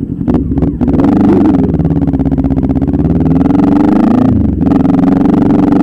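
Motorcycle engine running, a few clicks at first, then growing louder and steadier about a second in, with a brief dip in level about two-thirds of the way through.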